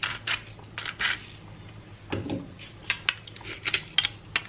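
Small hand-held pepper grinder being twisted over a pot, giving a run of dry, irregular grinding clicks.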